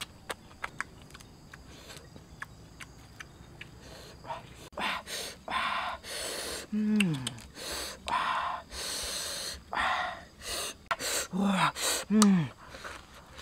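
Close-up eating sounds: soft chewing clicks, then crisp lettuce leaves crinkling and rustling in short bursts as they are folded around cooked crickets. Three short low grunts fall in pitch, one in the middle and two near the end.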